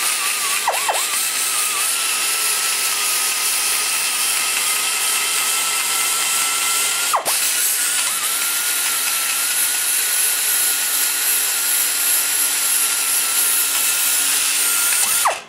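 Air die grinder spinning a carbide burr against the cast-iron intake port of a small-block Chevy cylinder head: a steady high whine over a hiss of cutting. The pitch dips briefly under load about a second in and again about seven seconds in, and the grinder winds down and stops near the end.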